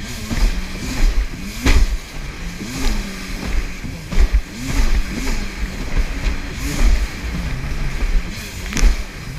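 Jet ski engine running through rough swell, its pitch rising and falling about once a second, with sharp slaps of the hull hitting the water a few times.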